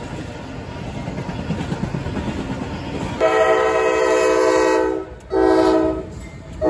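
Freight train rolling past with a steady rumble of wheels on rail, then a CSX diesel locomotive's air horn: a long blast, a short blast, and another starting near the end.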